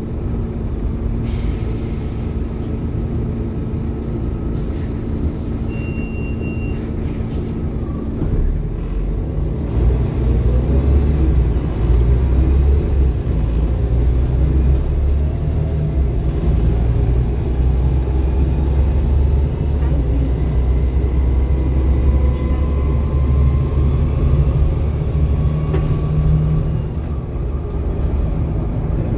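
Volvo B7TL double-decker bus's 7.3-litre Volvo D7C diesel engine running, with two short hisses in the first five seconds. The engine grows louder about eight to twelve seconds in as the bus pulls away, and a faint whine rises slowly through the second half.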